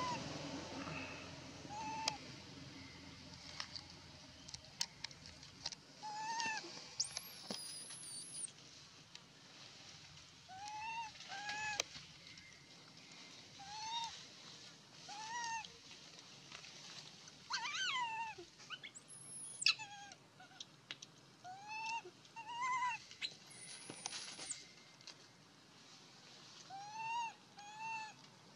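Baby macaque calling over and over: short, arched whimpering coos that rise and fall in pitch, a second or two apart, with a louder, shriller cluster about two-thirds of the way through. These are an infant's distress calls.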